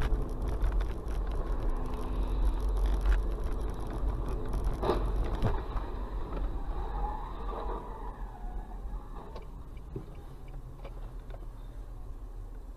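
Dashcam recording of a car's road noise on a wet road: a steady low rumble of tyres and engine, with a sharp knock about five seconds in. The rumble eases off after about six seconds.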